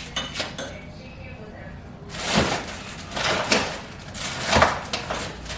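Food packages being handled and pushed into place while groceries are put away: a few small clicks, then from about two seconds in a loud rustling and scraping that swells three times.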